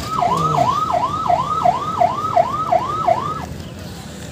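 An electronic vehicle siren giving eight quick falling wails, about two a second, that stop abruptly about three and a half seconds in, over street traffic noise.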